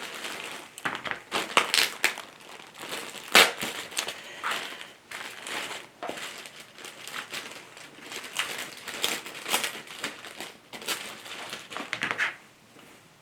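Mailing-envelope packaging crinkling and rustling in irregular handfuls as it is pulled open and a baby blanket is worked out of it.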